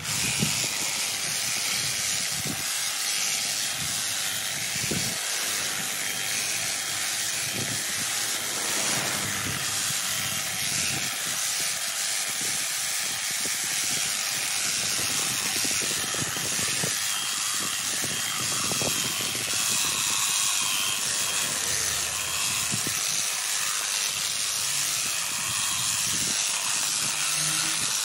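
Honda HHH36 AXB petrol hedge trimmer running at high revs, its blades cutting through a dense hedge: a steady, high-pitched buzz.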